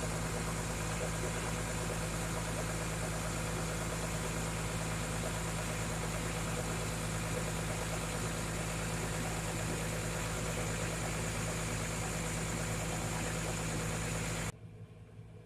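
Large diesel farm machinery engine running steadily at a constant speed, with a low drone and a strong hiss; it cuts off suddenly near the end.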